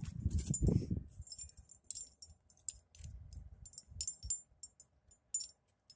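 Light metallic jingling: many short, irregular, high-pitched clinks, like small metal tags or a little bell shaken.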